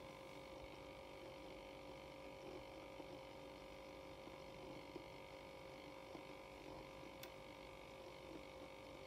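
Faint, steady hum of a HadinEEon electric milk frother running, its motor spinning the non-frothing whisk while it heats milk. A faint tick about seven seconds in.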